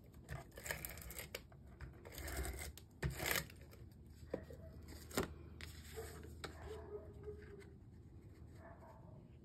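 Cardstock being handled: faint paper rustles and slides with a few light taps and clicks as an embossed paper panel is set onto a card base and pressed down by hand.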